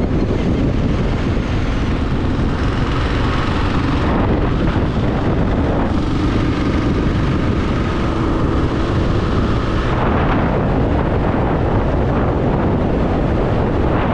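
Motorcycle riding at road speed: heavy wind rushing over the microphone, with the engine running steadily underneath.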